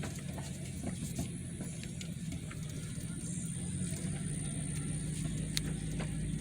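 Steady engine and road noise heard inside a car or truck cabin while driving: a low drone with a few faint clicks.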